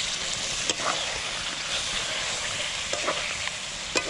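Chicken drumsticks and freshly added tomato purée sizzling in a hot metal kadai. A metal spatula scrapes and clicks against the pan a few times as it is stirred.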